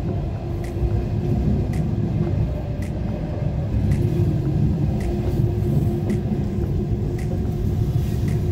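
Passenger train carriage in motion, heard from inside: a steady low rumble of the wheels on the rails, with faint ticks about once a second.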